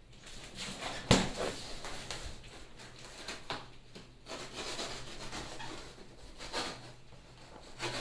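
Handling noises as a new refrigerator is unpacked: scattered rubbing and knocks, with one sharp knock about a second in that is the loudest sound.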